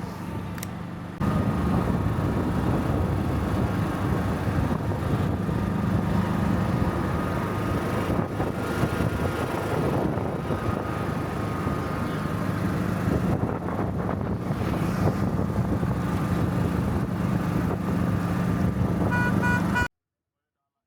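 Golf cart driving, with a steady motor hum and road and wind noise that get louder about a second in. A few short repeated beeps sound near the end, and then the sound cuts off suddenly.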